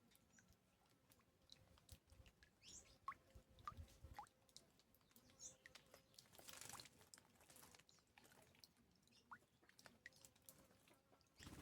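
Small birds at a bath, faint: short rising chirps every second or so, soft ticks, and a brief rustle of wings fluttering in water about six seconds in.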